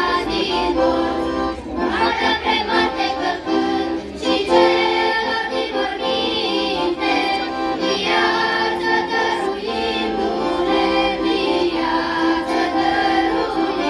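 Children's choir singing an Easter carol.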